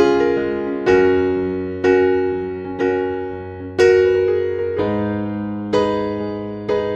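Background music: slow keyboard chords, one struck about every second and fading away before the next.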